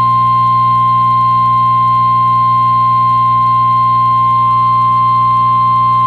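NOAA Weather Radio's 1050 Hz warning alarm tone: a single loud, steady pure tone over a low hum, signalling that a new severe weather warning message is about to be broadcast.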